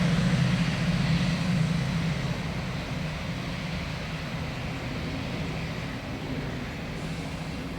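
A passing train's steady low drone with a hiss above it, dying away as the train moves off.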